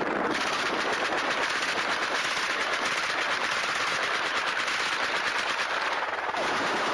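Rapid automatic gunfire fired from a police helicopter, the shots coming thick and fast over the steady noise of the helicopter, with a brief lull about six seconds in.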